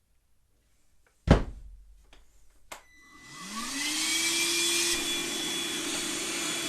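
A sharp knock about a second in, then a vacuum switches on: its motor spins up with a rising whine and settles into a steady run.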